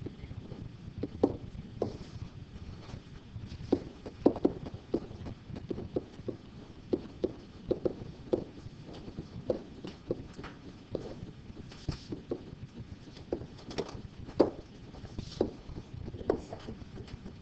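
Irregular light taps and clicks, some sharper than others, over a steady low hum of room noise.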